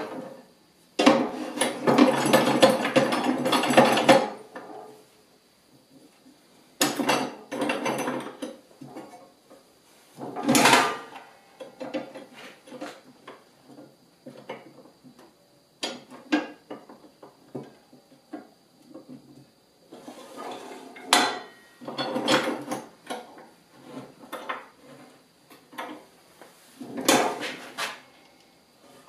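Steel flat strap being handled and set into a cold cut saw's vise: scattered metallic knocks, clicks and rattles, with a few seconds of continuous clatter about a second in.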